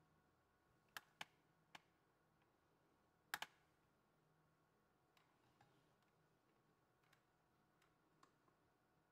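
Faint clicks and knocks of a glass bathroom scale being handled on a glass tabletop: three sharp taps in the first two seconds, the loudest a quick double knock about three and a half seconds in as fingers press on the platform, then a few softer ticks.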